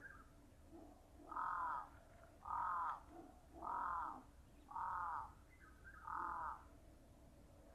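A crow cawing five times in a row, about one caw a second, each caw about half a second long.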